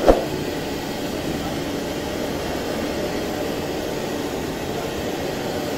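Hamra HM61 upright vacuum cleaner running steadily as its rotating brush roll sweeps and sucks dust from a thick carpet. A single short thump just at the start.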